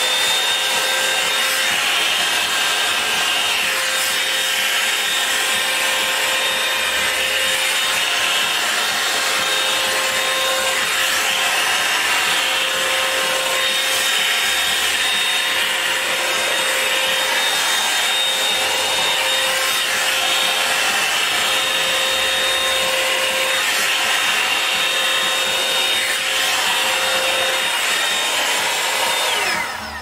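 Revlon Perfect Heat Perfectionist 2-in-1 hot-air dryer brush running steadily: the blowing air and a high motor whine. The whine winds down as the dryer is switched off near the end.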